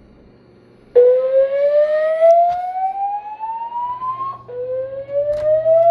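Building fire alarm sounding its slow-whoop evacuation tone. It starts suddenly about a second in, and each whoop rises steadily in pitch over about three and a half seconds, then drops back and rises again.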